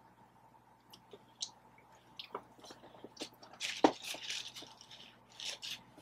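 Biting into and chewing crispy Popeyes fried chicken: scattered small clicks, then a loud crunchy bite about four seconds in and more crunching near the end.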